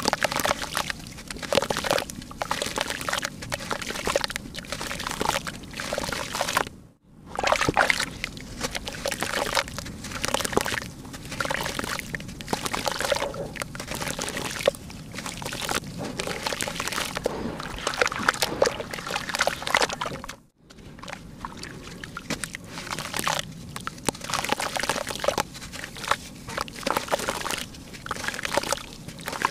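Soaked lumps of red dirt crumbled and squeezed by hand: gritty, wet crumbling with pieces dropping and splashing into a tub of muddy water, in an irregular run of bursts. Twice it breaks off for a brief silence.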